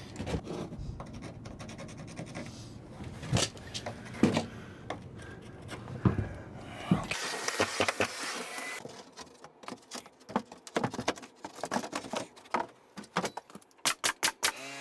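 A pencil scratching on a plywood subfloor, with rubbing and occasional knocks as the sheet is marked and handled. Then a scatter of sharp clicks, and near the end a fast run of sharp clacks as a pneumatic coil nailer starts nailing the plywood down.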